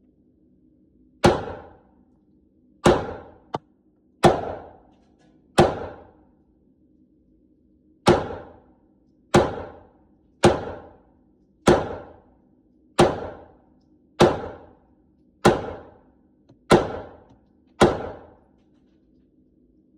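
Glock 19 9mm pistol fired thirteen times in slow, steady succession, about one shot a second with one longer pause, each report trailing off in a short echo.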